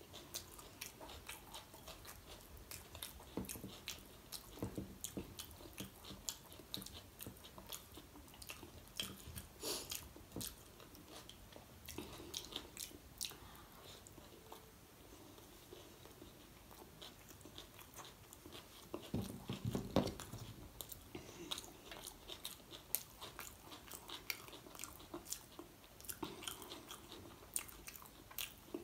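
Close-miked chewing and wet mouth sounds of someone eating pav bhaji (soft bread and mashed vegetable curry) with her fingers: many small smacks and clicks, with a louder dull bump about two-thirds of the way through.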